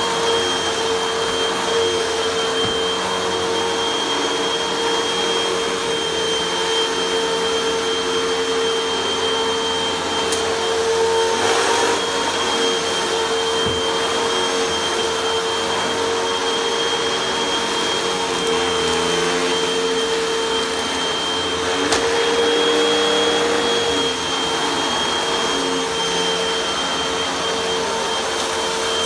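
Upright bagless vacuum cleaner running steadily while pushed over carpet, its brushroll engaged: a constant motor whine at one fixed pitch with a thinner high whistle above it, and a couple of light clicks along the way.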